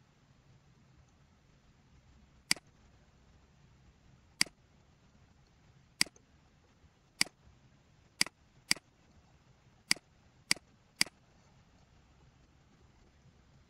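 Computer mouse button clicking: nine sharp single clicks at uneven intervals, closer together toward the end.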